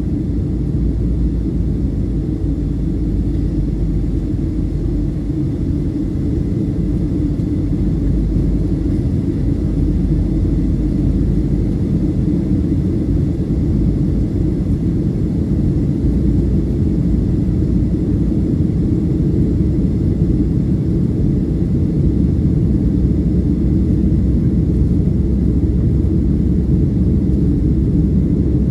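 Steady cabin noise of a Boeing 737-800 in flight: a deep, even rumble of its CFM56 turbofan engines and the airflow over the fuselage, heard from inside the cabin.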